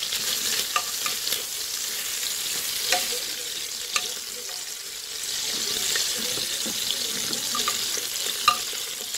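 Diced calabresa sausage and smoked pork loin frying in oil in an aluminium pot: a steady, dense sizzle with a few sharp ticks scattered through it.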